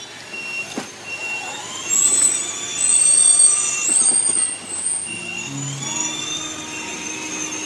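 Children's battery-powered ride-on toy car running: high-pitched whining tones that shift in pitch, louder for a couple of seconds in the middle, then lower steady tones.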